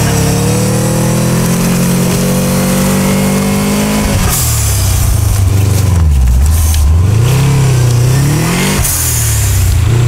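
Subaru Forester's turbocharged EJ20K flat-four revving hard while ploughing through deep snow. The revs are held high at first, then about four seconds in they drop and swing repeatedly up and down as the wheels spin. The engine is running with a spun connecting-rod bearing, whose knock the owner says can already be heard by this point.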